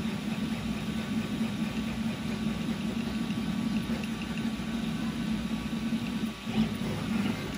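Railcore II 300ZL CoreXY 3D printer running fast, its stepper motors buzzing in quick, uneven bursts as the print head darts back and forth laying infill at 250 mm/s. The buzz drops out briefly about six seconds in.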